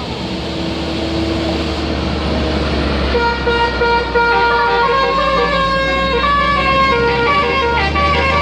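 Bus engine rumbling, then from about three seconds in a Basuri telolet horn plays a melody of held notes that step from pitch to pitch.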